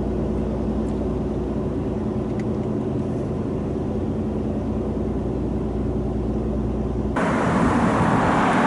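Steady low motor hum with several even tones. About seven seconds in it cuts off abruptly to louder, hissy street traffic noise.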